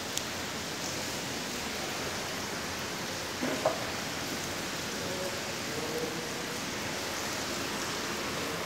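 Steady background hiss with no clear source, with a small click just after the start and a brief knock about three and a half seconds in.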